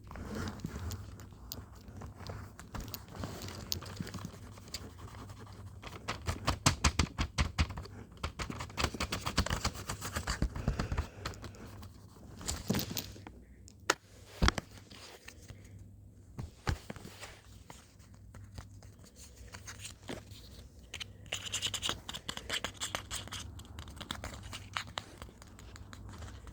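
Blind-bag packaging being handled and torn open by hand: irregular crinkling and tearing with scattered clicks, in a dense run of crackling from about six to eleven seconds in and another flurry near the end.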